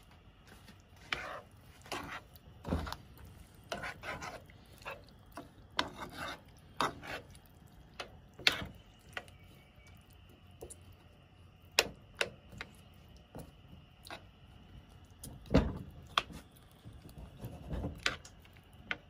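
Kitchen utensil stirring and scraping in a pan of coconut-milk vegetable stew: irregular scrapes and clicks, with a few louder knocks against the pan.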